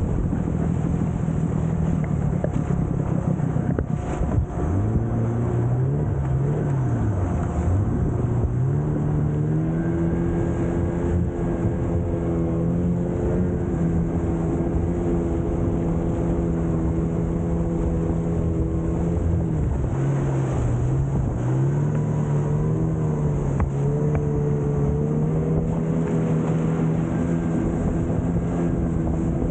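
A river longboat's outboard motor running at speed, its pitch dipping and rising a few times as the throttle changes, over the steady rush of water spraying off the hull.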